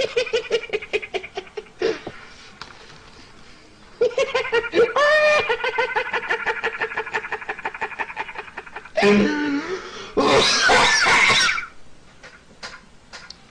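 A man's high-pitched laughter in long runs of rapid pulses, loudest and shrillest in an outburst about ten seconds in.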